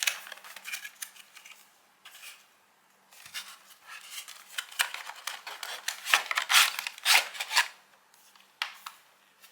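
Cardboard box and packaging of a retail SSD being opened and handled: irregular scratchy rustling and scraping, densest and loudest from about four to seven and a half seconds in.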